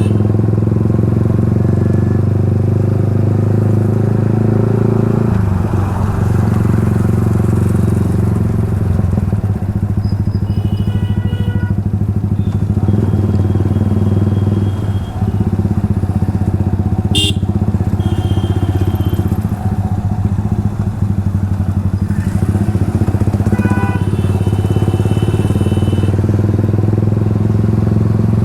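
Yamaha R15's single-cylinder engine running through an Akrapovic exhaust at a steady cruise, a continuous even drone. Vehicle horns sound briefly several times over it, and there is one sharp click in the middle.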